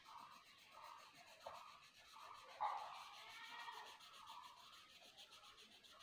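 Faint scratchy strokes of a hand-held colouring pen on paper, short and repeated, one a little louder a bit over halfway through.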